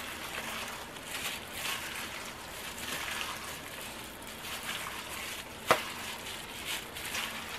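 Plastic-gloved hand squishing and tossing raw chicken strips in a stainless steel mixing bowl: irregular wet squelching and rustling, with one sharp click against the bowl a little before six seconds in.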